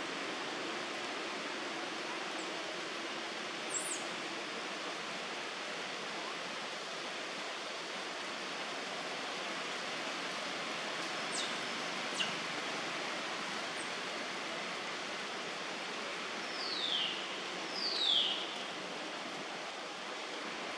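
Steady outdoor hiss, with a few brief high chirps and, near the end, two short calls falling in pitch.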